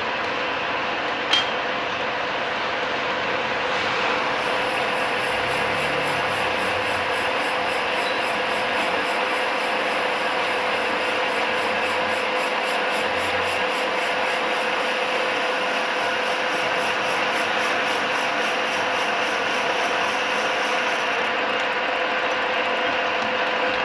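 Lathe running while an HSS cutting tool turns a hard nylon workpiece: a steady cutting noise over a steady hum, with one sharp click about a second in. A faint, rapid high pulsing joins about four seconds in and stops near the end.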